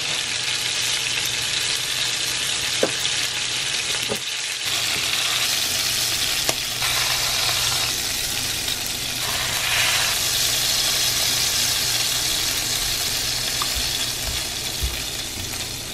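Hot grease from freshly grilled beef burger patties sizzling steadily.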